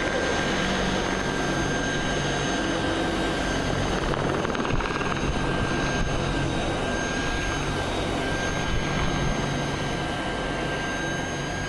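AH-64 Apache attack helicopter flying past, a steady drone of rotor and twin turboshaft engines with a constant high whine over it.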